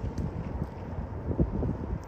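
Wind buffeting the microphone: an uneven low rumble with irregular gusty thumps.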